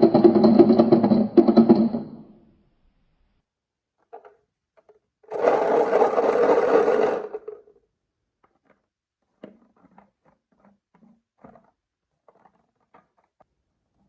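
A toy vehicle's small electric motor whirs and stops about two seconds in, then runs again for about two seconds midway. It is followed by sparse light clicks and taps of marbles on the wooden track.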